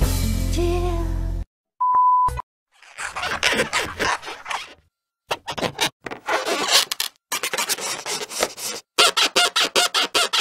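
Rubber balloon animals squeaking and honking as they rub against each other, in irregular bursts that turn into a fast, rhythmic run of squeaks near the end. Before that, the tail of a song cuts off, followed by a short steady beep.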